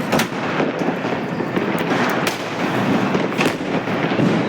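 Sky shot aerial fireworks going off: several sharp bangs, each about a second apart, over a constant noisy hiss.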